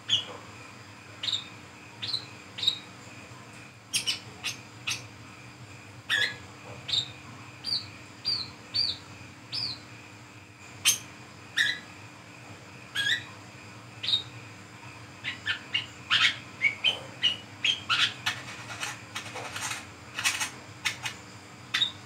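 Brown-throated sunbird (kolibri kelapa) calling: sharp single chirps and short downslurred notes, spaced out at first, then a quick run of twittering calls through the second half.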